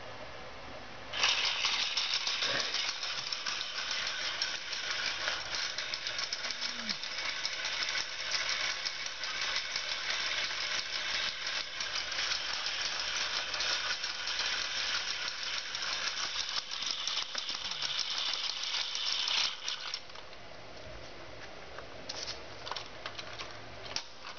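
Battery-powered toy horse running, its small motor and plastic gears making a steady, rapid rattle as it moves over a tile floor. The rattle starts about a second in and cuts off suddenly a few seconds before the end, followed by a few faint clicks.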